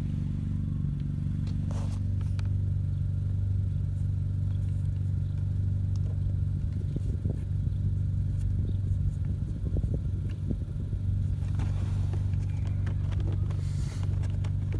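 Car engine idling with a steady low hum. Light scraping and rustling of wiring and plastic trim being handled comes in the middle.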